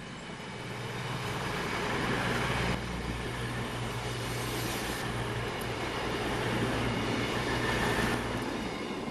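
A long multiple-unit passenger train passing and running away: a rumble of wheels on rail over a steady low running hum. It builds and stays loud, then starts to fade near the end.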